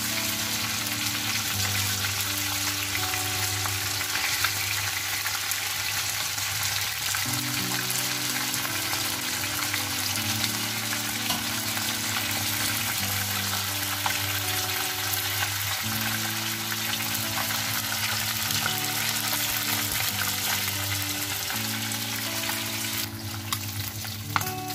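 Fish pieces frying in hot oil in a wok, a steady dense sizzle, with a soft background music track of low sustained notes under it.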